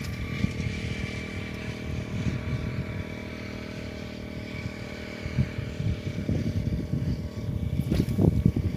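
A small engine running steadily, its even hum unchanging, with wind gusting and rumbling on the microphone; a sharp knock comes near the end.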